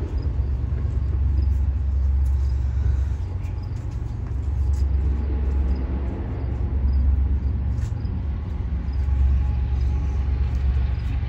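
Diesel locomotive engines running, a steady low rumble that swells and eases slowly.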